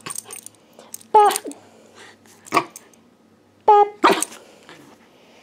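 Corgi puppy play-barking, a few short, sharp barks spaced a second or so apart, some with a rougher, growly edge.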